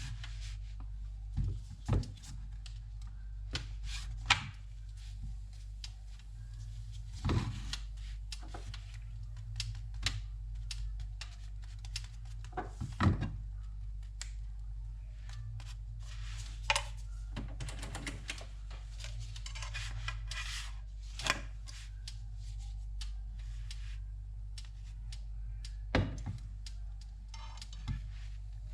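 Food preparation sounds: scattered knocks, clinks and rubbing of utensils and dishes, with a stretch of rustling about two-thirds of the way through, over a steady low hum.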